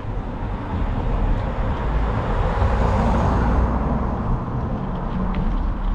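A car passing on the street, its tyre and engine noise swelling to a peak about three seconds in and then fading, over a steady low rumble.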